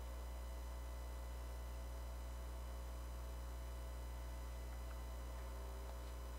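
A steady low electrical hum with nothing else happening: the background noise floor of the recording.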